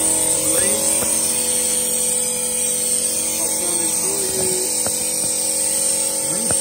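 A small air compressor runs with a steady hum, and compressed air hisses loudly through an air-powered vacuum bleeder that is drawing fluid and trapped air out of the clutch hydraulic line.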